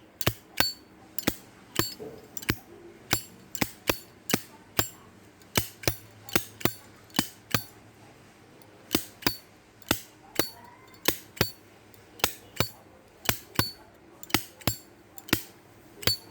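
Lid of an American-made Zippo lighter flicked open and snapped shut over and over, a crisp metallic clink about two to three times a second, often in quick pairs; the sharp, clean clink comes from a well-worn lighter.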